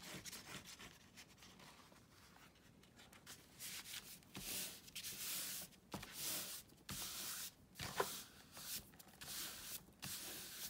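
Glue being smeared over paper by hand: a series of short, quiet rubbing and scraping strokes on the paper, starting a few seconds in, with a sharp click about eight seconds in.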